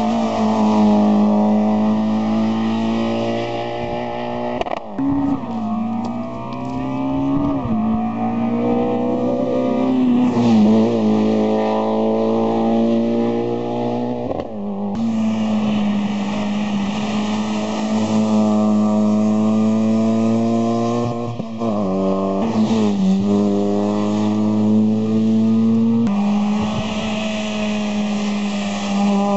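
Rally cars accelerating hard up a hillclimb course, one after another. The engines rev high, and the pitch climbs, then drops sharply at each gear change, about five times.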